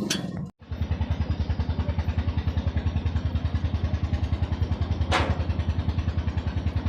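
An engine idling with a steady, even throb, starting about half a second in after a brief dropout. A short hiss comes about five seconds in.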